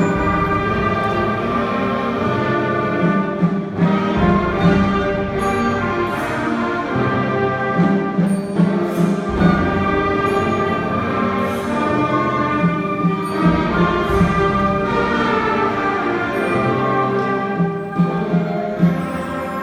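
Orchestral music: many instruments holding sustained chords that change every few seconds, with light bright strokes over them.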